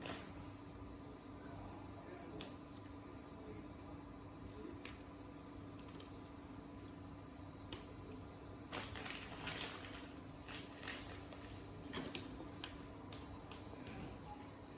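Scattered light clicks and taps of small objects being handled, with a stretch of denser rustling and clicking about nine seconds in, over a faint steady hum.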